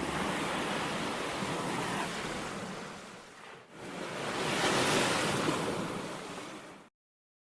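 Sea surf breaking on a beach, in two swells: the first dies away about three and a half seconds in, the second builds and then cuts off abruptly near the end.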